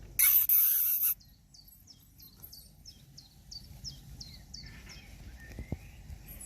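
A loud burst of rushing noise for about a second near the start, then a bird calling a steady series of short, high, falling chirps, about three a second, for several seconds. A single knock near the end.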